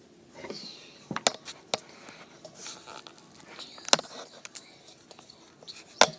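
Slime being squished and worked by hand, with a scatter of sharp pops and clicks and soft squelching in between; the loudest pop comes near the end.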